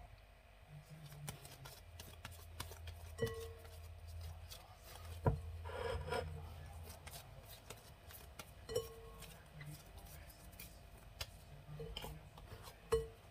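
Glass mixing bowl being handled on a wooden cutting board: a few faint, scattered knocks, several with a brief ringing note from the glass.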